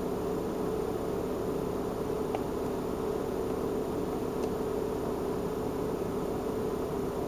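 Steady machine hum with a constant mid-pitched tone inside a car, and two faint clicks about two and four and a half seconds in as the scan tool's buttons are pressed.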